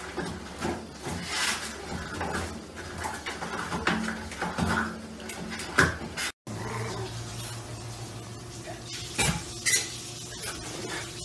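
A small dog tugging toilet paper off a wall-mounted holder, which rattles and clicks over and over, with one sharp loud click near the end of it. Then a steady low hum with two sharp clicks.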